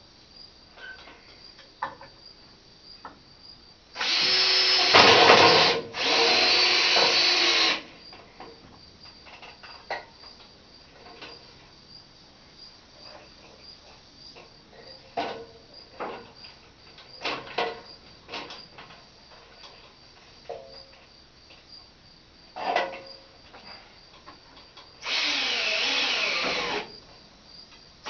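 Power drill running in three bursts of about two seconds each, two close together near the start and one near the end, with scattered knocks and clicks between them.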